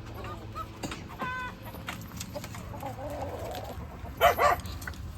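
Chickens clucking and calling in short scattered calls, with a loud short double call about four seconds in.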